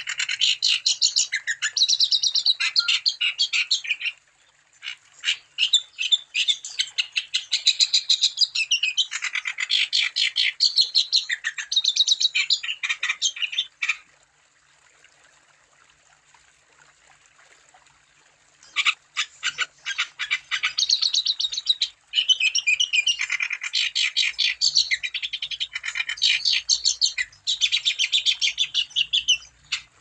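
A wambi songbird in full, persistent song (gacor): long phrases of rapid, high chirping notes. The song breaks off for a few seconds about halfway through, then starts again.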